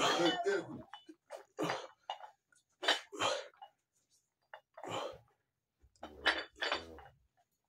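A man's forceful breaths, puffed out in short bursts about every second or so in time with alternating dumbbell curls, with the faint clink of the dumbbells' metal plates.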